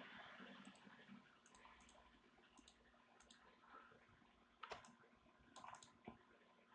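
Faint computer mouse clicks, several in quick pairs, over near-silent room tone.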